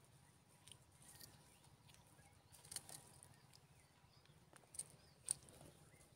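Near silence, broken by a few short faint clicks and rustles, the sharpest about five seconds in, with faint high chirps of birds in the background.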